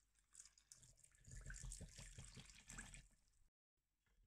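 Water poured into a plastic blender jar onto cooked rice and sugar, splashing and trickling quietly, stopping about three seconds in.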